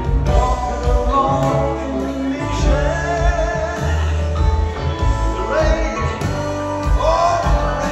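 Live band playing a slow song in a large hall: acoustic guitar, keyboards and drums, with sliding steel guitar notes rising in pitch a few times.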